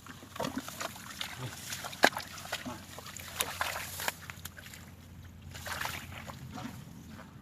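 Water splashing and sloshing in irregular bursts, mixed with scattered knocks and clicks; the loudest is a sharp knock about two seconds in.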